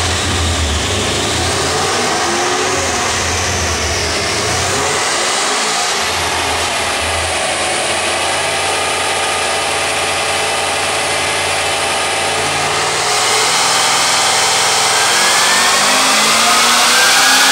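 2010 Chevrolet Camaro SS's 6.2-litre V8 running on a chassis dyno, holding a steady speed, then getting louder and climbing in pitch over the last few seconds as it accelerates.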